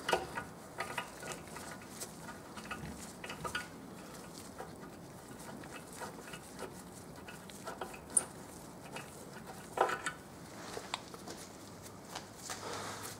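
Faint, scattered metallic clicks and light scraping from an M5 hand tap in its tap wrench being turned back out of a freshly cut thread in an aluminium oil sump, with a louder click about ten seconds in.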